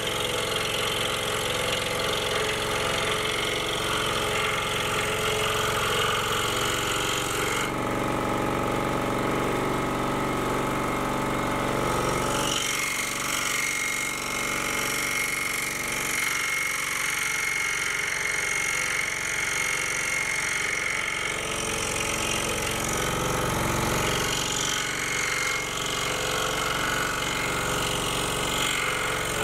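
Excalibur scroll saw running, its reciprocating blade cutting through a basswood blank in a steady, even drone. The tone of the cut changes about eight seconds in and again about twelve seconds in as the work is turned along the line.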